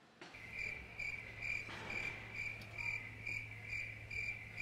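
Crickets chirping: a regular, high chirp a bit over two times a second over a low hum. It starts and stops abruptly, as an edited-in cricket sound effect does.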